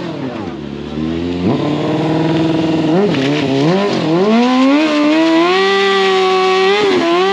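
Sport motorcycle engine revved in a few quick blips, then climbing and held at high revs for a burnout, with a brief dip near the end.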